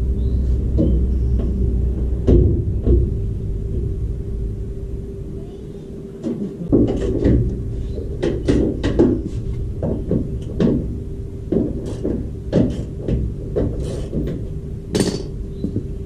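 Irregular metal knocks and clunks from a 1967 Chevelle's steel door being handled and adjusted on its hinges, coming thick and fast in the second half, over a steady hum.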